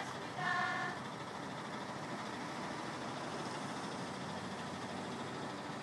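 Coach bus engine running steadily at idle. Just after the start, a group of young women's voices briefly calls out a greeting in unison.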